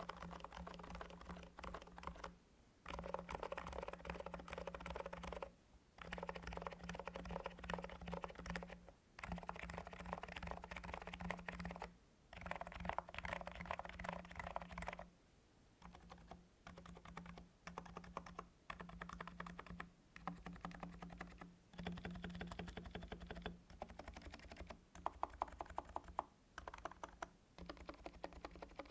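Typing on a NIZ x87 tenkeyless keyboard with electro-capacitive (Topre-style) switches: fast runs of keystrokes lasting a few seconds each, broken by short pauses.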